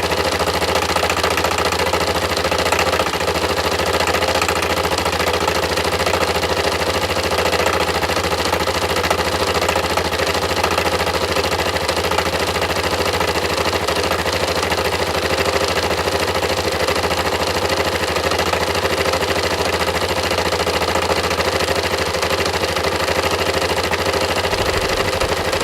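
Yamaha MT-03 motorcycle engine idling steadily with a rapid, even knocking, which the owner takes for engine knock.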